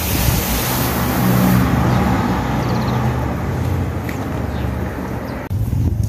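Steady rushing hiss of a garden hose spraying water onto grass, over the low hum of a Britânia Mega Turbo pedestal fan running. The hiss drops off abruptly about five and a half seconds in, leaving the hum.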